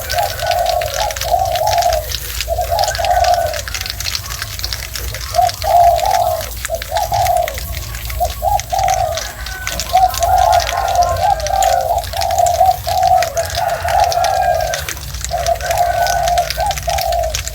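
Hedgehog eating, chewing with a fast run of fine crunching clicks. Under it runs a loud series of short mid-pitched humming notes, repeated every second or so.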